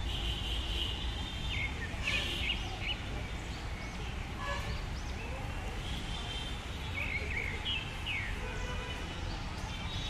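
Birds chirping in short, scattered calls over a steady low rumble of outdoor background noise.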